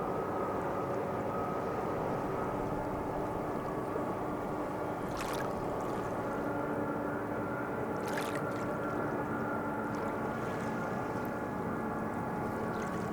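Boat engine running steadily, a constant hum made of several steady tones over a noise. Two brief, sharp, hissy noises cut in, about five and eight seconds in.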